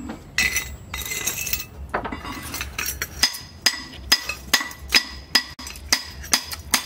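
Hand hammer striking a steel cleaver blank, cut from a chainsaw, held in tongs on an anvil. The blows ring with a metallic clink, scattered at first and then steady at about two to three a second.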